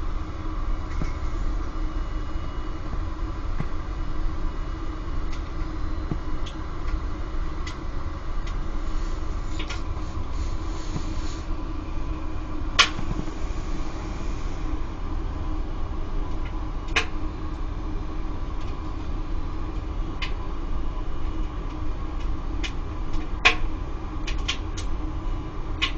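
Circulation pump on a Laddomat 21 wood-boiler charging unit running with a steady hum while it circulates the heating water. Now and then a sharp click stands out, the loudest about 13 and 23 seconds in.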